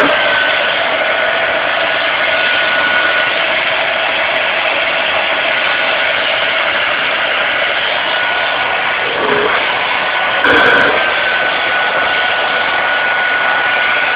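Vacuum cleaner running steadily: a continuous rush of air with a high motor whine, briefly louder about ten seconds in.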